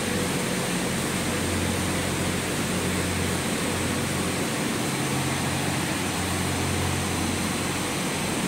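Steady machinery hum and rush of a funitel (double-cable detachable gondola) station, its drive and cabin-conveying machinery running as cabins move slowly through the terminal.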